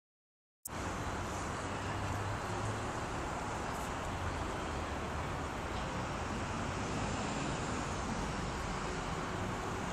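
Steady city street traffic noise, a continuous rumble of road vehicles, starting after a brief moment of silence.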